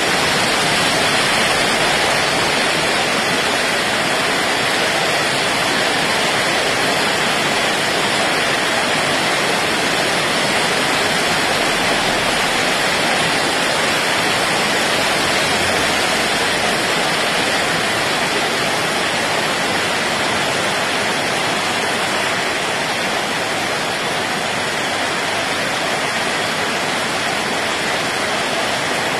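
Torrential tropical-cyclone rain pouring steadily onto a wet road and trees, a dense, even rush with no let-up.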